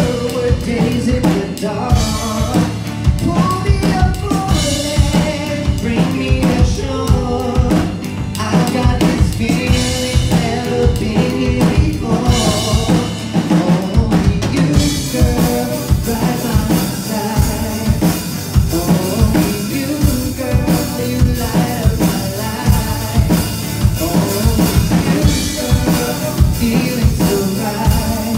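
Live band playing: a drum kit keeps a steady beat under acoustic and electric guitars. About halfway through, the music gets brighter and fuller.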